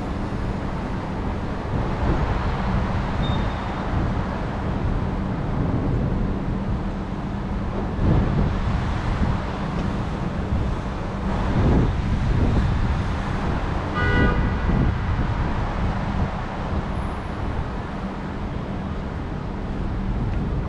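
Road traffic on wet roads in heavy rain, a steady wash of tyre and engine noise. A short car horn toot sounds about two-thirds of the way through.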